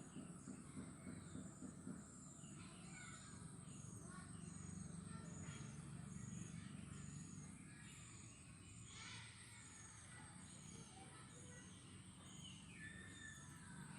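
Faint outdoor ambience: birds calling now and then over a steady high hiss, with a short chirp repeating about one and a half times a second.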